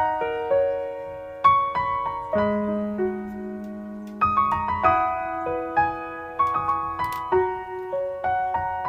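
Gentle solo piano music, notes struck one after another and left to ring.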